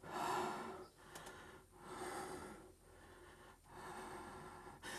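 A person breathing audibly close to the microphone, about five breaths in a row with short gaps between.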